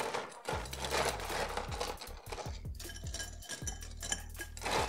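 Ice cubes scooped up and tipped into a tall glass, clattering and clinking against the glass and the ice scoop in a run of many small knocks.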